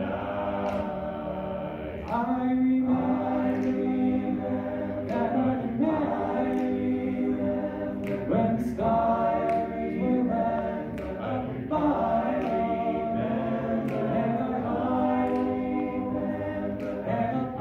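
Male a cappella group singing in close harmony, a soloist at a microphone over sustained backing chords that change every second or two.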